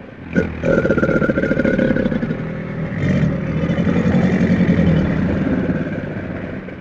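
Crocodilian growling bellow: one long, rough, rumbling call lasting about six seconds, fading near the end.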